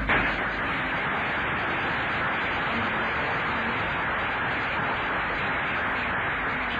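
Steady static hiss that starts abruptly and holds at an even level.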